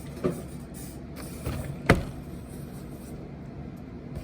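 Packaging being handled: a few short knocks against low background noise, the loudest a sharp knock about two seconds in.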